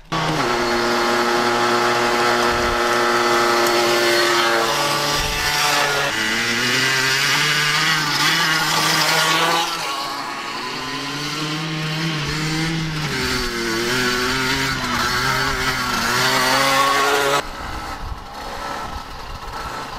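Dirt bike engine running while being ridden, its pitch stepping and rising and falling with the throttle, quieter near the end.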